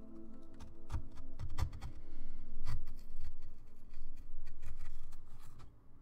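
Carving gouge cutting into a wood block: a run of short, irregular scraping cuts and knocks. Background music fades out about a second and a half in.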